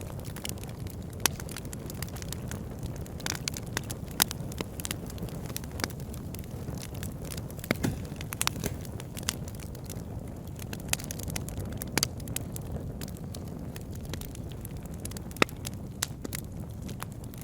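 Wood fire burning in a fireplace: a steady low rumble of flames with frequent crackles and a few sharper, louder pops scattered through.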